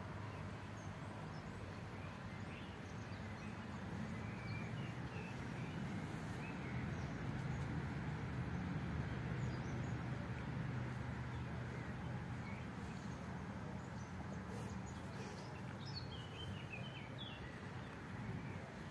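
Small birds chirping and tweeting now and then, with a cluster of chirps near the end, over a steady low background hum.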